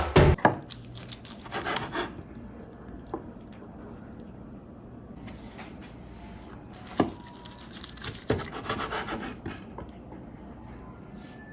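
Quiet handling noises: scattered light knocks, with sharp clicks about 7 and 8 seconds in, and some rubbing and rustling. A short burst of drum-led music ends just at the start.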